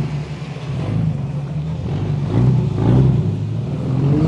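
Toyota Land Cruiser 100-series engine pulling through soft desert sand. The engine note swells, eases and then climbs again as it revs up near the end.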